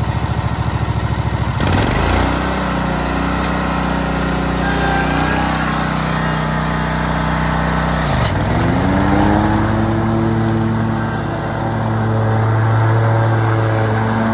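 Zero-turn riding mower's engine running under way. Its pitch rises about a second and a half in, then drops sharply and picks back up about eight seconds in, and holds steady after that.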